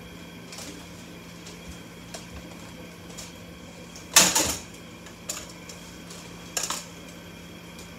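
Handling noises: scattered clicks and knocks of things being moved, with one louder clatter about four seconds in, over a steady low hum.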